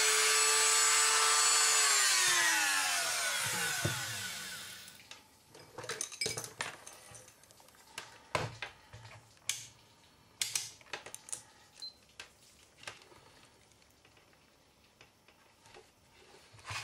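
Small high-speed rotary tool with a thin disc running with a steady whine, then switched off about two seconds in and winding down, its pitch falling as it slows to a stop. After that, a scatter of light clicks and taps from handling the small resistor and test leads.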